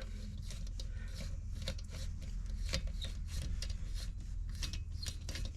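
Helicoil thread tap being turned by hand into a freshly drilled stud hole in an alloy motorcycle crankcase, cutting new threads: an irregular run of small clicks and scrapes.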